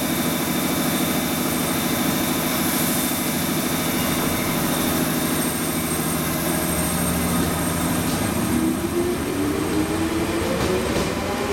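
JR 211 series electric train pulling out of the station: a steady running hum, then from about two-thirds of the way in, a motor whine rising in pitch as the train gathers speed.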